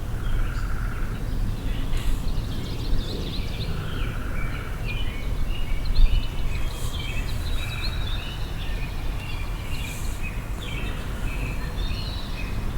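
Several birds chirping in a nature recording, with many short calls and a brief trill that comes back about every three to four seconds, over a steady low rumble.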